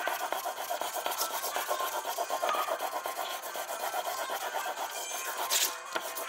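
Plane iron in a roller honing guide being sharpened on wet abrasive paper: a continuous gritty rasping scrape of steel on grit as it is pushed back and forth, with a brief louder scrape about five and a half seconds in.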